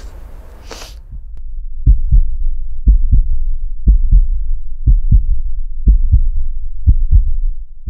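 Heartbeat sound effect: deep low thumps in pairs, about one pair a second, starting about two seconds in and running for about six beats.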